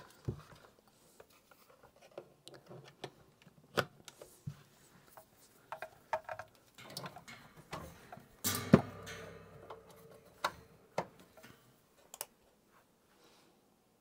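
Scattered clicks and light knocks from hands handling a plug-in power meter, electrical cords and a variac, with a louder clatter about halfway through.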